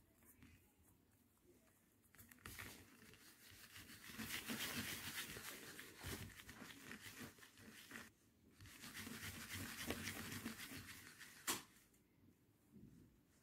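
Faint rubbing and scuffing of a hand rolling a ball of ensaymada dough round under the palm on a textured plastic mat, in two spells of several seconds each, with a single sharp tap near the end.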